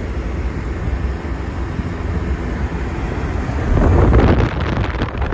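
A car on the move: low engine and road rumble with wind buffeting the microphone, swelling to a louder rush about four seconds in.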